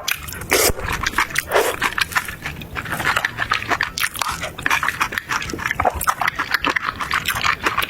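Close-miked mukbang eating sounds: a person biting and chewing food with wet mouth smacks and rapid crackling clicks.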